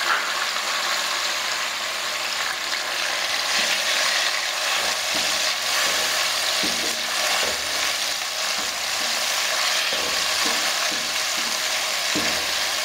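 Chopped tomatoes sizzling in hot mustard oil in a metal kadai, a steady hiss. From a few seconds in, a wooden spatula stirs them, scraping and knocking against the pan about once a second.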